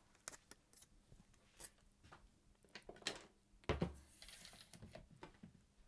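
Faint clicks, taps and light rustling of a corded earphone cable and earbuds being handled and laid out on a kitchen scale, with a soft thump a little past the middle.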